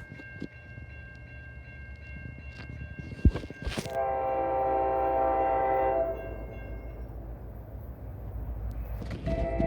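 Horn of an approaching NJ Transit GP40PH-2B diesel locomotive: a long blast about four seconds in that lasts some two seconds, and another blast starting near the end, over a steady low rumble.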